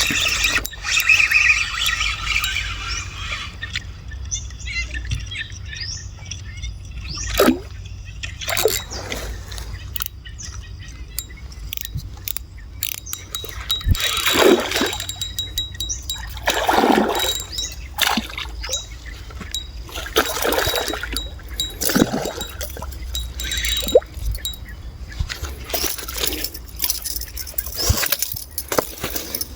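Water splashing in short irregular bursts over a steady low rumble, as a hooked fish thrashes at the surface.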